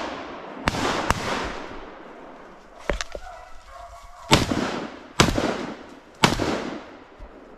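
Shotgun shots with long echoing tails: two loud bangs close together about a second in, a quieter report about three seconds in, then three loud bangs about a second apart from four seconds on.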